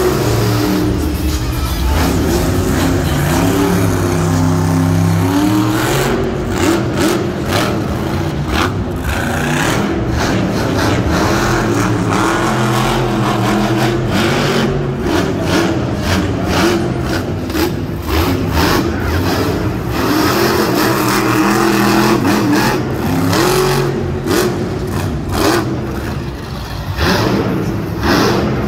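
Zombie monster truck's supercharged methanol-burning V8 revving hard and repeatedly as it drives on the dirt floor, the engine pitch climbing and dropping over and over.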